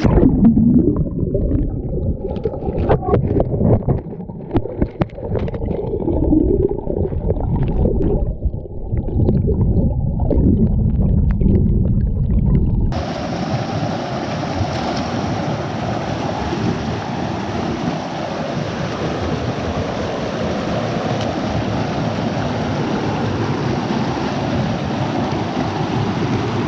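River water heard underwater: a muffled gurgling rumble with scattered knocks. About halfway through it switches abruptly to a steady rush of flowing water with a wider, brighter hiss.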